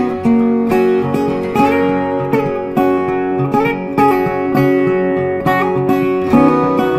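Background music played on acoustic guitar, a steady run of plucked and strummed notes.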